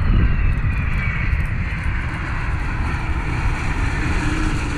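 Gulfstream business jet's twin rear-mounted turbofans passing low on landing: a whine falling in pitch over the first second or so, above a heavy low rumble. About four seconds in, as the jet touches down, a new steady engine tone comes in.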